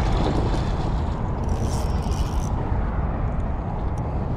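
A hooked trout splashing at the water's surface close to shore, with a brief burst of splashing about a second and a half in, over a steady low rumble.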